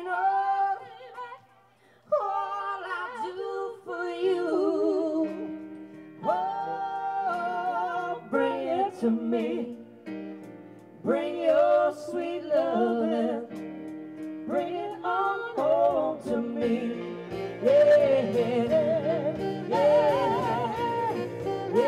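Live band music: a woman singing long held notes with a wide vibrato, backed by the band. A steady drum beat comes in about two-thirds of the way through.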